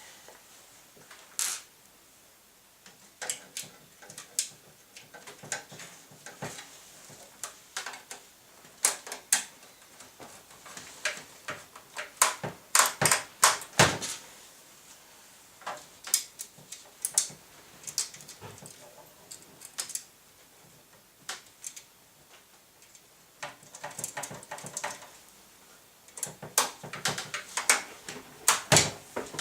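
Irregular clicks, taps and knocks of hands working on a desktop PC case, fastening parts and handling metal and plastic pieces, in clusters with short pauses between.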